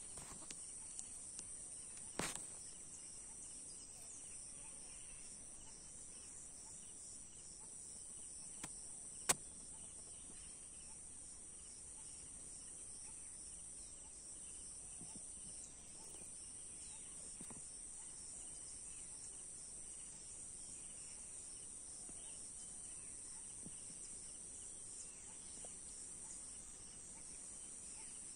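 Steady, high-pitched insect chorus, with two sharp clicks about two seconds and about nine seconds in.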